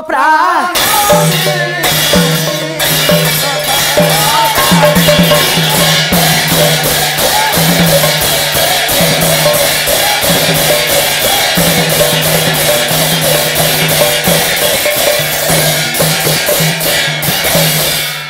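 Instrumental interlude of a Pala troupe's accompaniment: a hand drum and jingling cymbals keep a quick, even rhythm under a melody line and a steady low drone.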